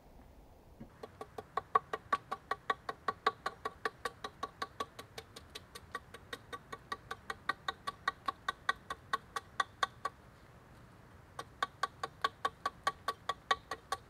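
Small axe chopping rapidly along a log, hewing its surface flat for a floor: quick, evenly spaced ringing strikes, about three or four a second, with a short pause about ten seconds in.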